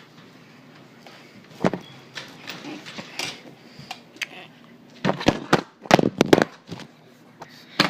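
Handling knocks and plastic clatter: a single knock, then a quick cluster of knocks and rattles about five to six and a half seconds in.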